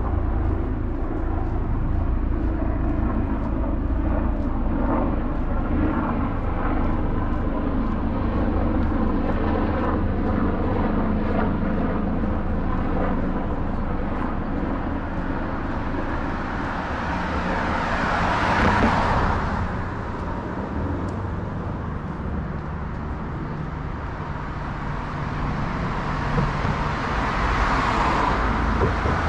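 City street traffic: a steady low engine hum, then a vehicle passing close about two-thirds of the way through, swelling and fading, and another one approaching near the end.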